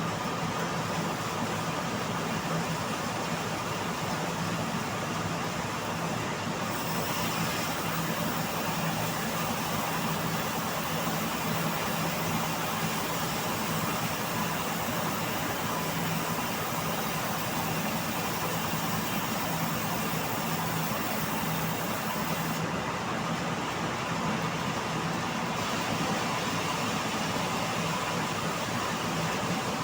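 Bandsaw sawmill machine running steadily, a constant mechanical noise with a steady low hum.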